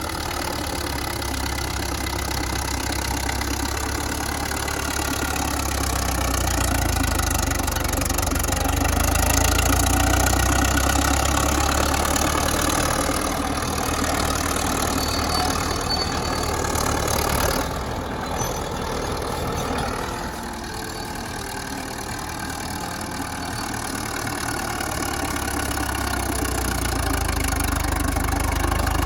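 Large bulldozer's diesel engine running steadily, swelling louder and easing off several times as it works.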